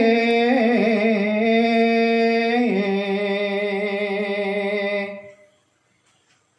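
A man singing a Javanese macapat verse solo and unaccompanied, holding one long, wavering note that steps down in pitch twice before fading out about five seconds in.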